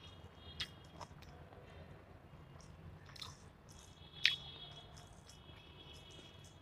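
Close-up eating sounds: chewing on a mouthful of chicken curry and rice eaten by hand, with a few sharp clicks, the loudest about four seconds in.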